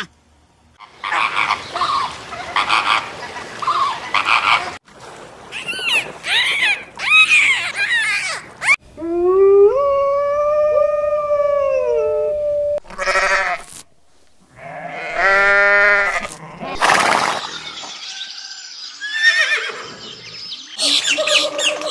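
A quick succession of different farm-animal calls, cut one after another with abrupt changes between them. Near the middle, one long call holds a steady pitch for about three seconds.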